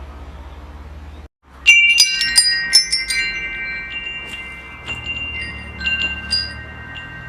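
Metal wind chimes jangling: a quick cluster of strikes about two seconds in, then sparser single strikes, each tone ringing on. Before the chimes there is a low steady hum that cuts out abruptly.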